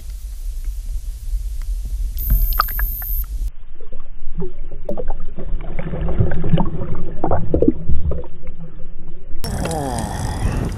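Wind rumbling on the microphone and water sloshing around a small boat while a hooked pike is played at the boat, with scattered clicks and knocks; about three and a half seconds in the sound turns muffled, and it opens up again near the end.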